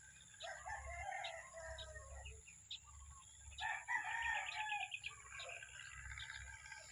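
Rooster crowing twice, the second crow louder, about three and a half seconds in, with small birds chirping.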